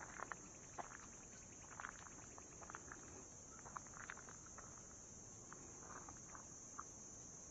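Faint, steady high-pitched chorus of crickets, with scattered soft ticks and scuffs.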